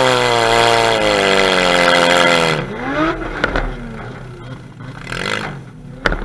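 Demolition derby car's engine revving hard and held high, then abruptly let off about two and a half seconds in, with a brief rev just after and a quieter engine sound until a sharp knock near the end.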